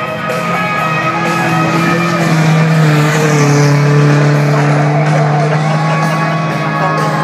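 Rock music playing over an outdoor PA loudspeaker, with long held notes.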